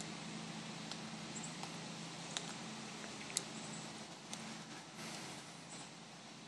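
Footsteps of soldiers in dress shoes marching slowly on a stone plaza: faint, sharp heel clicks about once a second over a steady low hiss.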